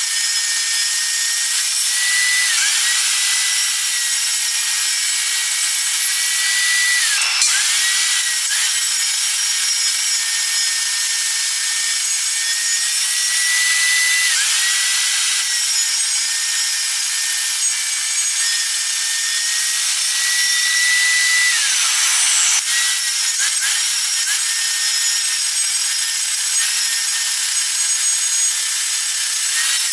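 Circular saw cutting a spinning wooden blank on a drill-driven lathe. Its whine drops in pitch and recovers several times as the blade bites into the wood.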